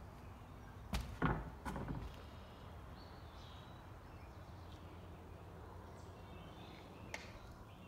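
A few sharp knocks and crunches about one to two seconds in, with one more click near the end, over a quiet background; faint bird chirps come in from about three seconds on.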